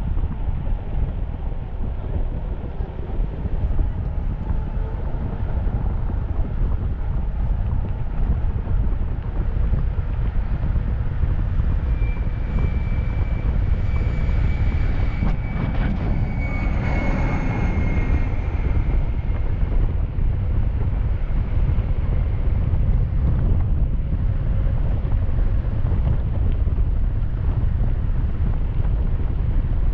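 Wind rushing over a head-mounted camera microphone on an electric mountain bike ridden at speed, a steady low rumble. From about twelve seconds in, a faint high whine comes and goes for several seconds.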